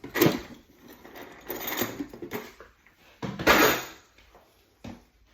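A few knocks and scrapes of things being handled, the loudest about three and a half seconds in.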